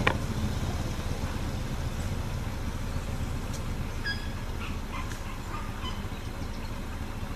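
Steady low hum of an idling vehicle engine, with a few short bird chirps scattered through the middle.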